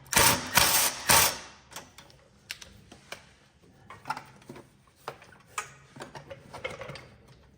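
Ratchet wrench loosening the 13 mm bolts on a winch fairlead: a loud rattling stretch in the first second or so, then scattered ratchet clicks and light metal taps.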